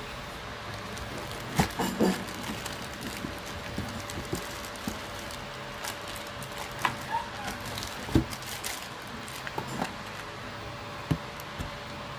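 Clear plastic packaging bag crinkling and rustling as a 360 mm AIO liquid cooler's radiator and hoses are unwrapped and handled. It comes as scattered, irregular crackles and clicks, a few louder knocks among them, over a steady hiss.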